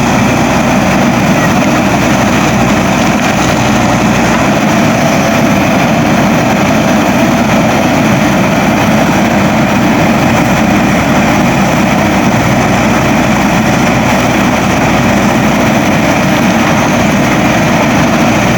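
Backhoe loader's diesel engine running steadily, with no change in pitch or level.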